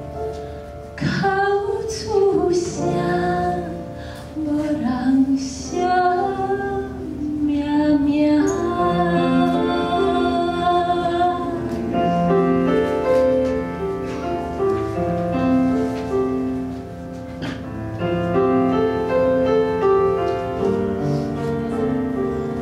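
A woman sings a Taiwanese folk song solo with grand piano accompaniment, her last phrase held with vibrato. About halfway through her voice stops and the piano plays on alone.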